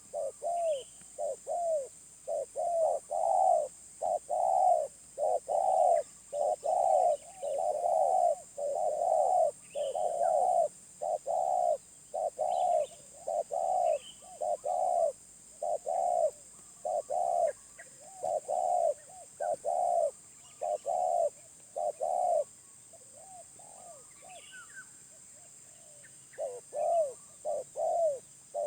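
Spotted dove (tekukur) cooing in long runs of quick, repeated coo notes, pausing for a few seconds about three quarters through and then starting again. Faint high chirps from small birds sound in the background.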